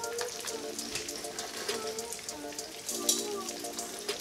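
Breaded catfish nuggets frying in hot oil in a cast iron skillet: a steady crackle with scattered pops, under light background music. A sharp click about three seconds in.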